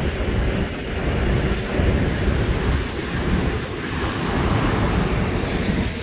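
Steady rush of a river in flood churning over a weir, swollen by heavy rain, with wind buffeting the microphone.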